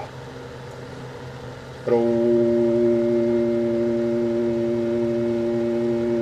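Heathkit SB-220 linear amplifier under transmit load: a steady, loud mains hum with several even overtones stops, and after a quieter gap of about two seconds a click brings the hum straight back, holding steady while the amplifier stays keyed.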